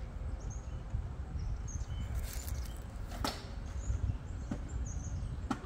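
Outdoor background of a steady low rumble with small birds chirping now and then, and a couple of sharp clicks about three and five and a half seconds in.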